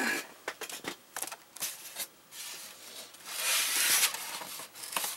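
Packaging being handled and rustled, with scattered light clicks and knocks and a longer rustle about three and a half seconds in.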